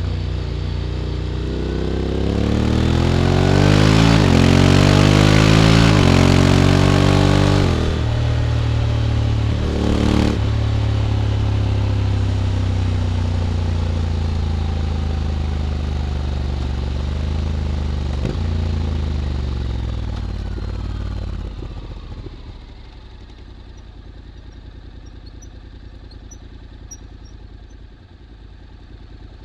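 Honda X-ADV 750's parallel-twin engine through an SC-Project titanium slip-on exhaust. It accelerates hard with a rising pitch and wind rushing past, eases off, runs steadily, then drops to a quiet idle about two-thirds of the way through.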